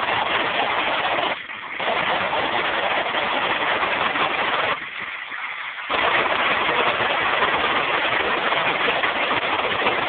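Rushing water of an artificial waterfall, a steady loud wash that dips sharply twice, briefly about a second and a half in and for about a second around the middle.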